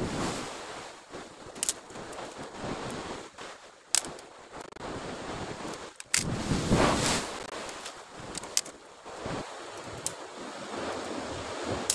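Sea surf washing against a rocky shore, with a louder surge about six seconds in, and wind on the microphone. A few sharp clicks are heard.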